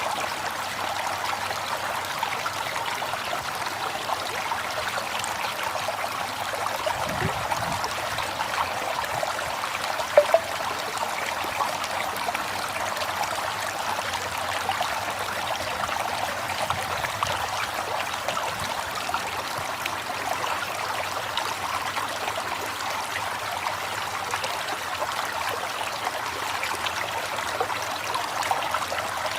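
A river flowing steadily, with an even rush of water and a trickling, babbling texture. One brief sharper splash or knock stands out about ten seconds in.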